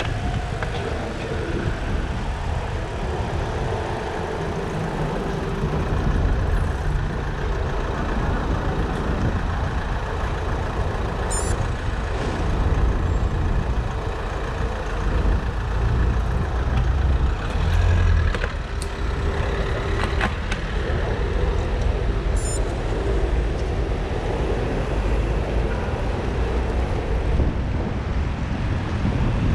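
City traffic heard from a moving bicycle: vehicle engines running close alongside, over a steady low rumble of wind on the microphone and road noise.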